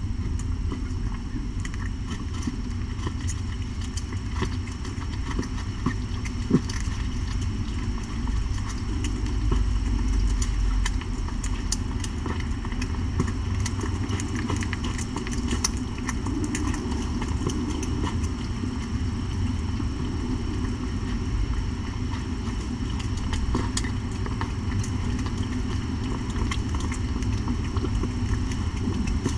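Mother cat purring steadily while nursing her newborn kittens, a low continuous rumble, with faint scattered clicks over it.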